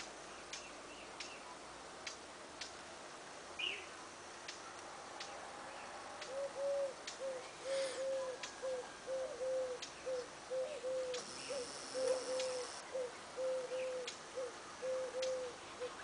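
A bird calling: a steady run of short, low notes, about two a second, starting about six seconds in and going on for some nine seconds, over faint scattered clicks.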